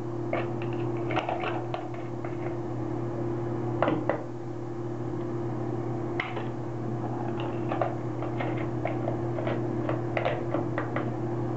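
Scattered small clicks and taps as a cap is pressed and fitted onto a shower bar's wall mount, with a denser run of taps near the end, over a steady low hum.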